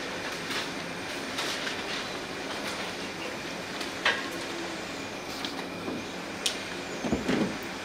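Room noise of a full courtroom: a steady hiss with scattered small clicks and rustles, and a louder brief shuffle or murmur about seven seconds in.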